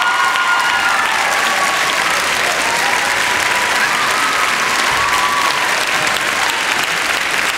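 Large audience applauding with dense, steady clapping. The choir's last sung note dies away about a second in.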